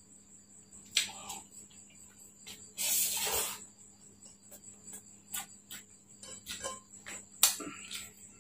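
Close-miked mouth sounds of a person eating fried instant noodles by hand: chewing and lip smacks heard as scattered small clicks, a louder half-second rush about three seconds in, and one sharp click near the end.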